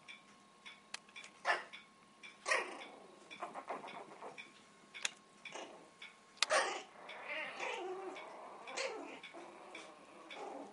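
Puppies play-growling and yipping as they wrestle: a few short sharp yips, then a longer wavering growl in the middle.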